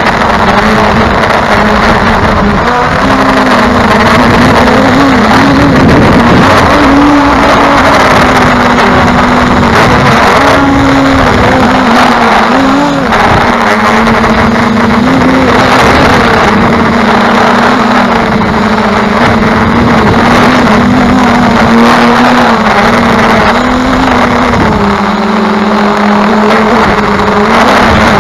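Quadcopter's 2212 920KV brushless motors and 9-inch propellers humming loudly, heard from the drone's own camera, the pitch wavering up and down continually, with wind rushing over the microphone.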